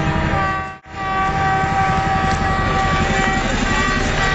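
Long, steady horn blasts from a crowd of fans over the low, beating rotor noise of a helicopter flying overhead; the sound cuts out for an instant about a second in.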